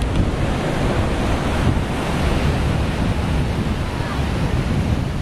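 Ocean surf breaking on a rocky shore, a steady rushing roar, with wind buffeting the microphone.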